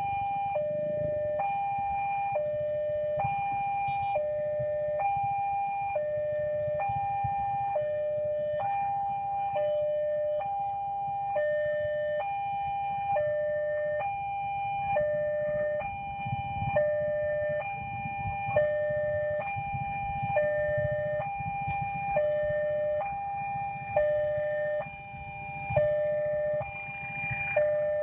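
Electronic warning bell of a railway level crossing: a higher and a lower tone alternate in an even, steady rhythm, over a low rumble of passing traffic.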